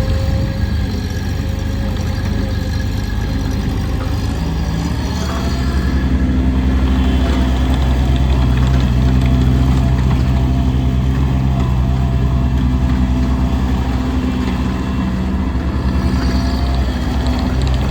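Bobcat MT100 walk-behind skid steer loader's engine running steadily, growing a little louder about six seconds in and then holding.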